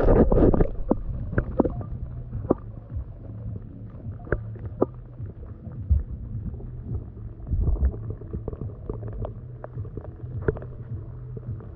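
Sound picked up with the camera held under water: muffled, dull water movement and gurgling, with scattered clicks and knocks against the camera and a steady low hum.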